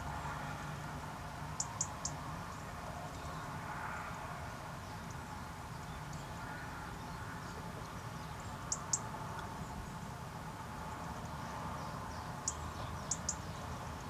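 Small birds calling in the background, a European robin and a Spanish sparrow. Short, sharp, high ticks come in twos and threes three times, over a steady faint background hum.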